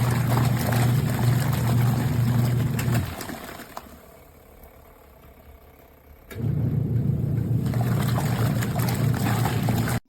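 Costway twin-tub portable washing machine's wash motor humming as water sloshes in the tub. About three seconds in the motor stops for roughly three seconds, then starts up again.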